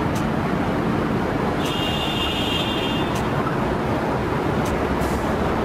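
Street traffic noise with a police SUV driving by, a steady rumble, with a brief high-pitched whine about two seconds in.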